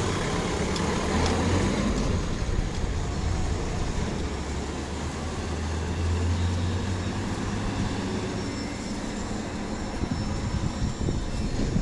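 Train running past a level crossing: a steady low drone that swells twice.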